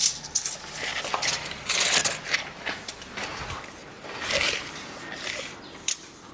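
Irregular clicks, knocks and scraping of hands-on building work, with small hard parts clinking; the scraping noise swells about two seconds in and again past four seconds.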